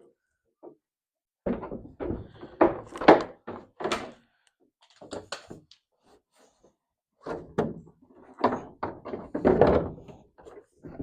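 Repeated thunks and knocks of a body panel being set onto a John Deere GT235 garden tractor and worked into place, in two main spells of clattering a few seconds apart.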